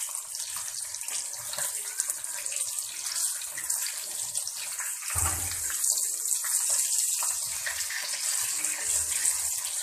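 Masala-coated fish pieces frying in hot oil in a wok, a steady bubbling sizzle, with one dull low thump about halfway through.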